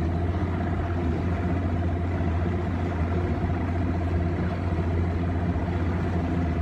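An engine running steadily: a constant deep hum with a faint higher tone above it, no change in speed.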